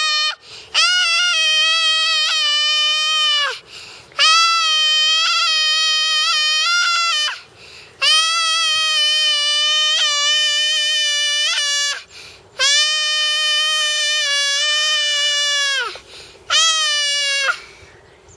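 A small boy shouting: a string of long, high, drawn-out yells, each about three seconds, with short breaths between and a briefer yell near the end.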